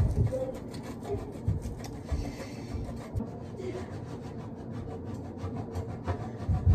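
Parmesan cheese being grated on a stainless steel box grater in quick, repeated scraping strokes, with a couple of low thumps near the start and end.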